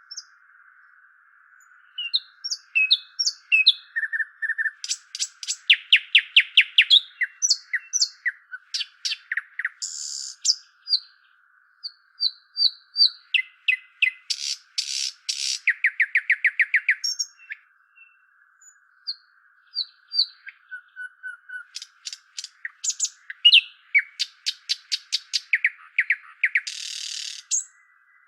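Bird song and calls: bursts of rapid trills and sharp chirps with short pauses between phrases, and a harsh buzzy note about ten seconds in and another near the end, over a faint steady hiss.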